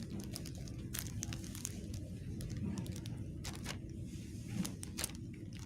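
Light crinkling and a scattering of short clicks as squishy toys and their plastic wrapping are handled, over a steady low hum.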